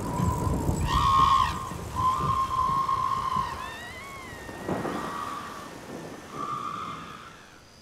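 A series of long, whistle-like tones, one of them wavering in pitch about four seconds in, over a low rumble, fading away near the end.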